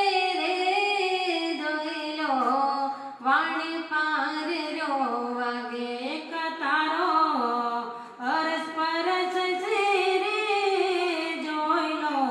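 A woman singing a Gujarati bhajan with no instruments heard, in long, sliding melodic phrases with short pauses for breath about three and eight seconds in.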